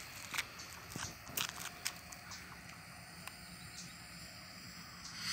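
Quiet outdoor ambience with a few faint scattered taps and clicks while a lit bang fai rocket's fuse burns. At the very end the rocket motor's hiss starts to rise as it ignites.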